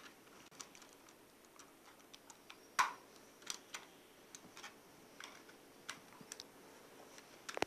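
Faint, irregular metallic clicks and ticks from a screwdriver backing the long security screw out of a mortise lock case, with a slightly louder click about three seconds in.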